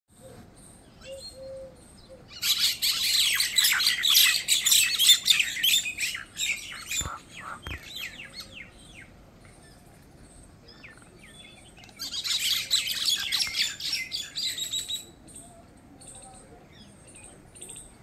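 Common mynas giving dense, rapid chattering calls in two loud bursts, the first lasting about four seconds and the second about three, with softer scattered calls between.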